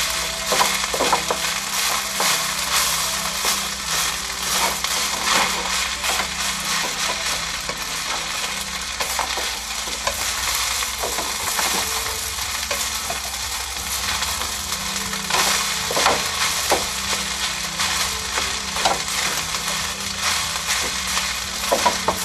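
Fried rice sizzling in oil in a hot wok while a wooden spatula stirs it, with frequent scrapes and light knocks of the spatula against the wok's sides.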